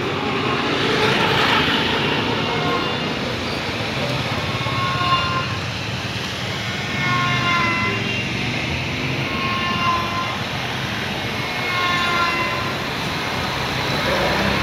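Steady street traffic noise from a busy city road. Several short, high horn-like tones sound every couple of seconds.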